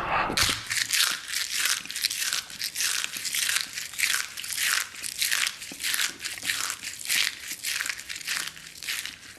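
Close-miked ASMR eating sounds: a sudden loud bite, then steady crunchy chewing at about two crunches a second.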